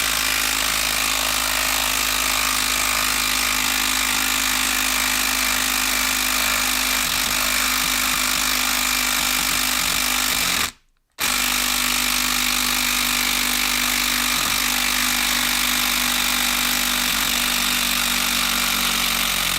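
Makita 12-volt brushed impact driver hammering continuously as it tries to back out a stuck Timberlok screw. It stops briefly about eleven seconds in, then carries on.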